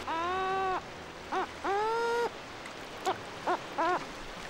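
Lava gulls calling: two long, arched cries, with short yelps between them and three quick short notes near the end, over a faint steady wash of noise.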